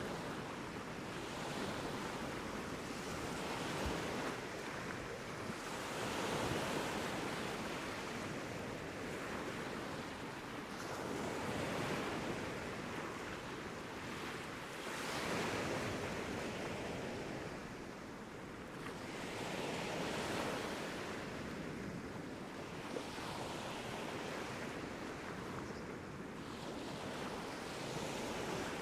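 Sea waves washing onto a beach, breaking and drawing back in slow swells every few seconds.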